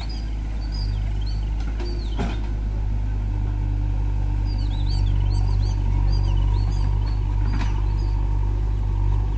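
Tractor diesel engine idling steadily, a low even drone, with birds chirping over it. A single sharp knock sounds about two seconds in.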